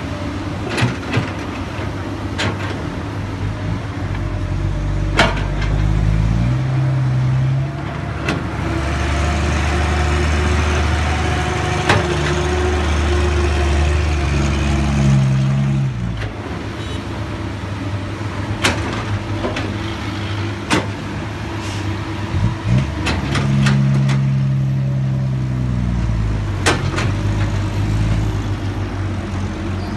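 Komatsu PC200 hydraulic excavator's diesel engine working, its pitch rising and falling as it comes under load three times, with scattered sharp knocks and clanks from the digging and dumping.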